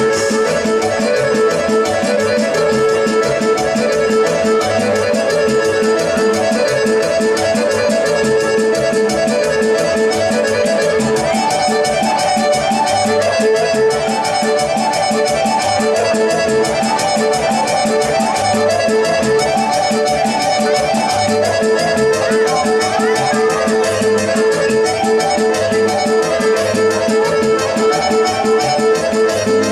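Traditional Serbian folk dance music for a kolo line dance, playing continuously with a steady, even dance rhythm.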